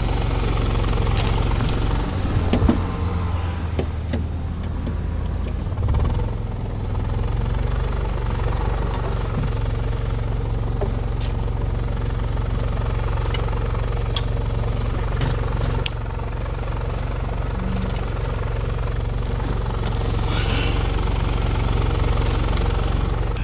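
The engines of an electrofishing boat running steadily: the generator that powers the shocking booms and the outboard motor, a continuous low mechanical hum, with a few light clicks and knocks on top.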